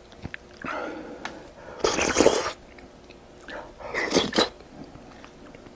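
Mouth sounds of a person eating close to the microphone, with two loud breathy bursts about two and four seconds in.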